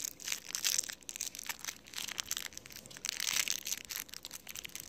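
Close crinkling and rustling right at the phone's microphone, in irregular flurries of crackles.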